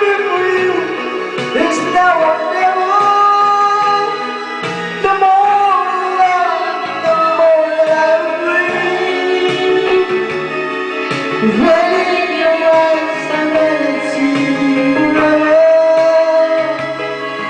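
A pop song playing, with a sung melody over guitar and other instruments.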